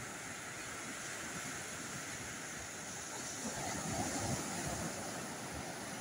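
Ocean surf breaking and washing up the shore, a steady hiss that swells louder a little past halfway as a wave comes in.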